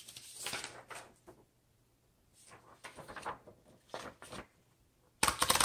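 A sheet of paper rustles as it is loaded into a 1928 Royal 10 upright typewriter, then a loud, dense run of sharp clicks comes about five seconds in as the platen is turned to feed the paper.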